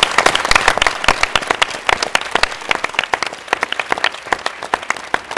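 Applause: many people clapping at once, dense and loud at first, thinning to scattered separate claps toward the end.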